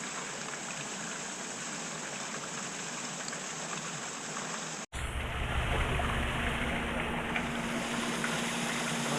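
Steady rushing water noise for about the first five seconds. After an abrupt cut, a boat motor runs with a low rumble, and a steady hum joins about a second later.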